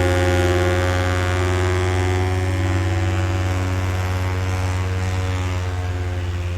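A steady, loud low drone with many overtones, fading slightly.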